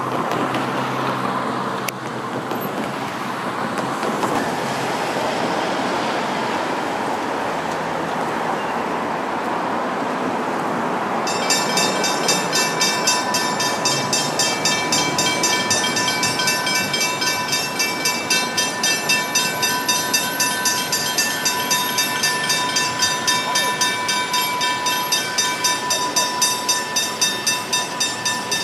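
Level crossing warning bell starting to ring about eleven seconds in, then ringing on in rapid, even strikes: the crossing has been activated for an approaching train. Before it there is a steady rushing noise.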